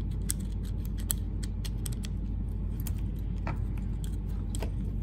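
Light metallic clicks and scrapes of an Allen key turning a long screw out of a steel padlock body, over a steady low hum.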